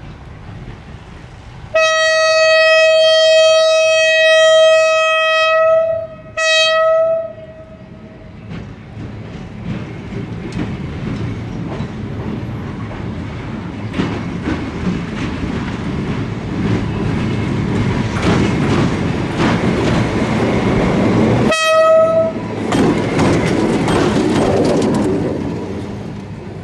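East German-built EL2 electric locomotive sounding its single-tone horn: a long blast about two seconds in and a short one just after, then the rumble and rail clatter of the locomotive growing louder as it approaches and passes, with another short horn blast near the end, fading at the close.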